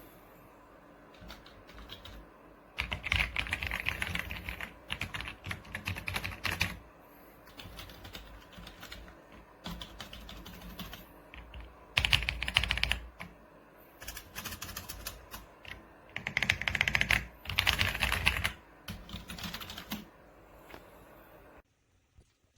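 Typing on an RK Royal Kludge R75 mechanical keyboard with silver switches: bursts of rapid key clacks with lighter, slower keystrokes between, stopping shortly before the end.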